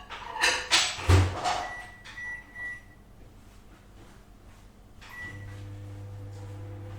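Microwave oven handling: a few clunks and knocks as the door is shut, then short high keypad beeps. About five seconds in, another beep and the oven starts running with a steady low hum.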